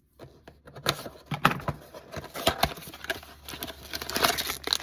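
Blind-box packaging being opened by hand: cardboard and a plastic wrapper crinkling and rustling in irregular bursts, with small sharp clicks.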